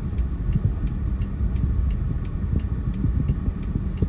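Steady low rumble of a small 4x4, a Suzuki Jimny, being driven over a sandy dune track.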